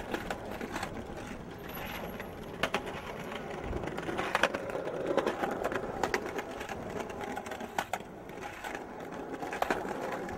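Skateboard wheels rolling over the concrete of a skate bowl, a steady rumble with sharp clacks from the board every second or so.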